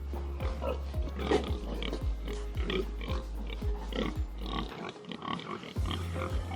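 Pigs vocalizing over background music with a steady beat; the music's low bass drops out for about a second a little past the middle.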